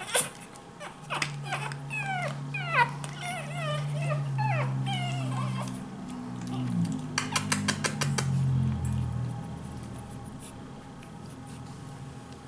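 Pekingese puppies, five weeks old, whining and yipping in many short, high squeaks while they wrestle in a pile, over about the first six seconds. Under them runs a low drawn-out drone, and about seven seconds in comes a quick run of clicks.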